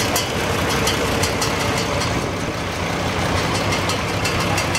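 1954 Cockshutt Model 40 tractor engine idling steadily, with faint, irregular high ticks over the low running note.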